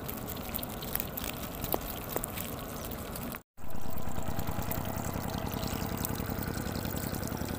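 Shallow water pouring and trickling over a muddy bank, a steady running-water sound. It cuts out for a moment about three and a half seconds in, then comes back a little louder.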